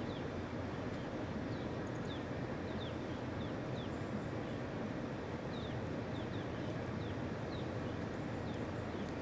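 A steady low rumble, with a small bird's short, high chirps falling in pitch, repeated irregularly over it.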